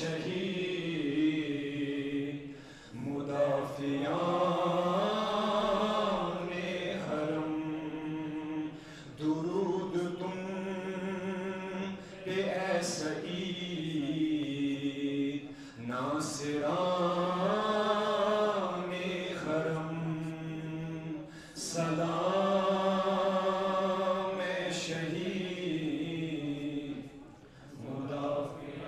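A man chanting a devotional salaam in long, drawn-out sung phrases with a wavering pitch. Each phrase lasts a few seconds, with short breaks between them.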